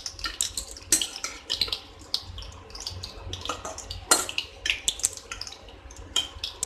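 Breadcrumb-coated fish fingers deep-frying in hot oil in a steel kadai: a dense, irregular crackling sizzle. A few sharper clinks of the perforated spoon against the pan come as the pieces are turned, the loudest about a second in and again about four seconds in.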